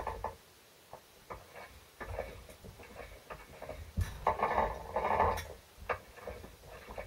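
Gear train of a Land Rover Series 3 gearbox turned by hand on the bench, the gears clicking and ticking, with a louder rough grinding stretch about four seconds in. The owner puts the noise down to a helical gear slightly out of mesh.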